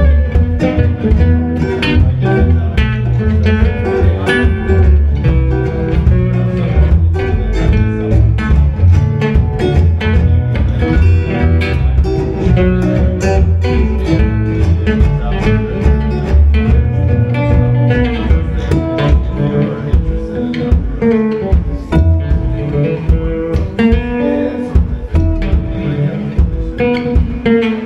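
Music: plucked guitar with double bass and bowed strings, many quick plucked notes over a steady bass.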